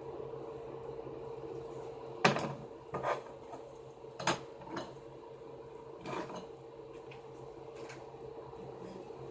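A steady electrical hum runs throughout, with about half a dozen sharp knocks and clatters of hard objects being handled. The loudest knock comes a little over two seconds in, and the last comes near the end.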